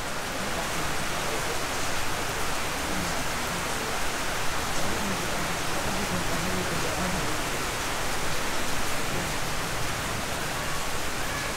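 Steady rain falling, an even constant hiss with no breaks.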